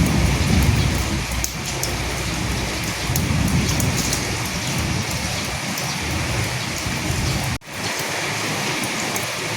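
Steady rain, with individual drops ticking sharply over the hiss and a low rumble swelling twice in the first half. About three quarters of the way through the sound cuts out for an instant, and afterwards the low rumble is gone.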